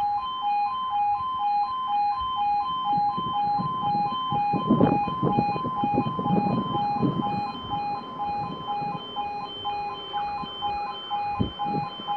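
Level crossing audible warning alarm: two electronic tones alternating several times a second without a break, sounding while the crossing closes for an approaching train. An uneven low rumble runs underneath.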